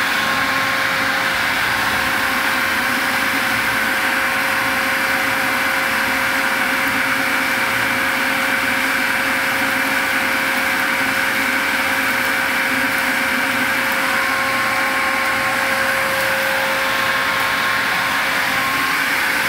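New electric motor on a bulk tank washer pump running steadily, a constant hum with a few fixed tones. It is turning in the right direction but not yet moving water, which the owner puts down to the pipe not yet being full.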